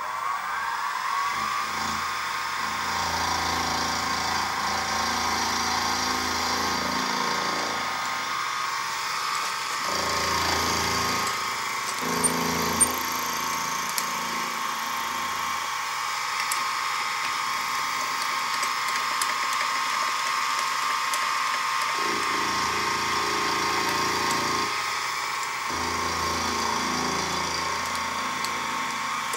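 Sieg SX2P milling machine spindle winding up to speed in the first second, then running with a steady whine as its end mill skims the faces of the two eccentric strap halves in the vise. A rougher cutting sound comes and goes in stretches as the cutter works across the parts.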